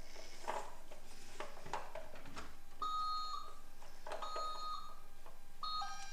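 Light plastic clicks and knocks from toy vehicles being handled, then a battery-powered toy vehicle's electronic sound effect: three short two-note beeps, each stepping down slightly, about a second and a half apart.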